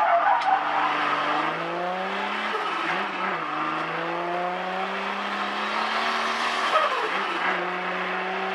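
Turbocharged 2JZ inline-six in a Toyota 86, heard from inside the cabin on track, its pitch climbing slowly. The pitch dips briefly twice, about three seconds in and again near seven seconds, then climbs again.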